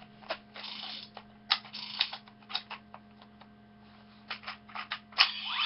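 Plastic dial of a Ben 10 Ultimate Alien chest badge toy being turned by hand, giving a string of irregular ratcheting clicks. A sweeping electronic sound effect from the toy begins right at the end.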